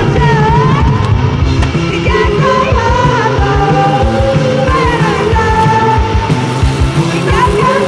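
Backing music: a song with a sung vocal line gliding between held notes over a steady beat.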